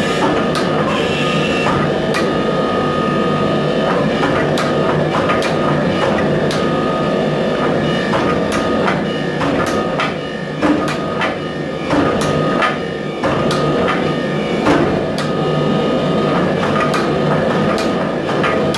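Hydraulic forging press running with a steady hum and whine while its dies squeeze a red-hot steel blade, with irregular sharp clicks and knocks throughout.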